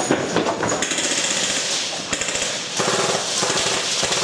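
Airsoft guns firing on full auto, a fast, even rattle of shots that grows denser near the end.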